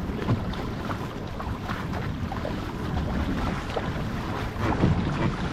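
Outrigger canoe under way at racing pace: paddle blades catching and splashing, water rushing along the hull, with wind buffeting the microphone. There is a louder splash near the end.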